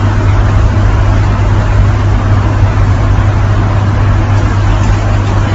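Steady loud background noise with a strong low hum and no distinct events.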